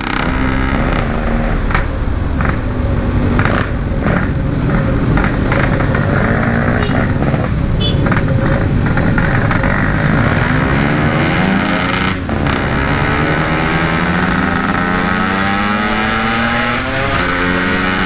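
Yamaha RX-King 135 cc two-stroke single running through a stock-style aftermarket exhaust while riding in traffic. There is a brief break in the engine note about twelve seconds in, then its pitch rises steadily as the bike accelerates.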